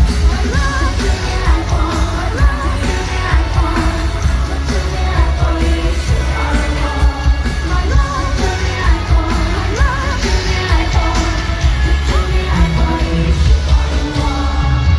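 Mandopop song with a woman singing over a heavy bass line.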